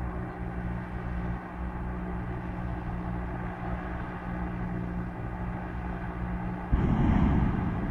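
Hot-air airships' propeller engines droning steadily. About seven seconds in, a sudden loud rushing noise comes in over the drone.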